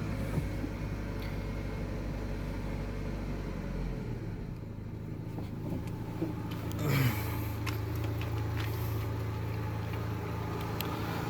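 Daewoo Lanos 1.6 four-cylinder engine idling steadily, with a brief rise in pitch about seven seconds in before settling again. It runs smoothly, without misfiring or foreign noises, after the repair of a damaged fourth-cylinder piston.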